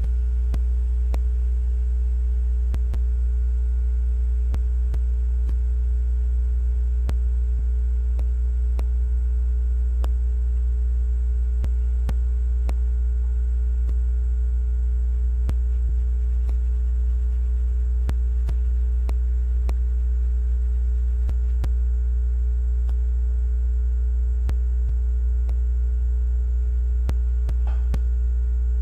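Steady, loud low electrical hum with fainter steady higher whining tones, unchanging throughout, and a few faint scattered clicks.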